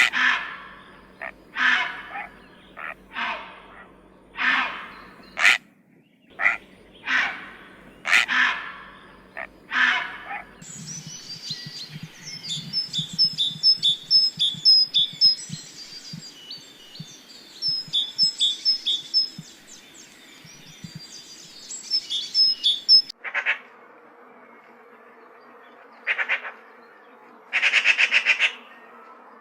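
Bird calls from three different recordings in a row: first a series of harsh calls about one a second, then a stretch of high rapid chirping, then a few short buzzy calls near the end.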